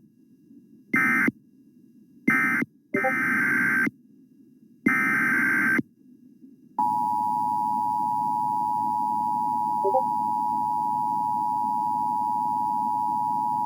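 Emergency Alert System data bursts, a warbling two-tone modem screech: two short end-of-message bursts, then two longer header bursts. About seven seconds in, the steady two-tone EAS attention signal starts and holds.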